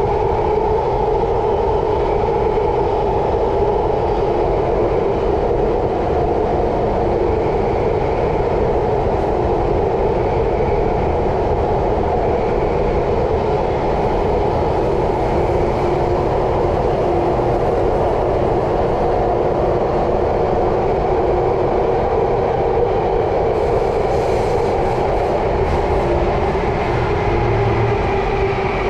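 Singapore MRT train running underground, heard from inside the car: a steady, loud rumble and hum of wheels and motors that does not let up.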